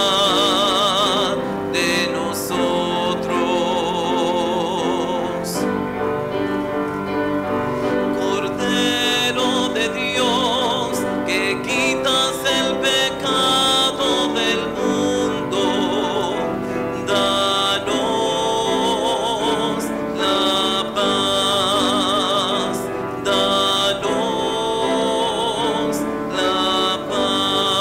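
Sacred music: a solo singer in a classical, operatic style with wide vibrato, held notes over a piano accompaniment.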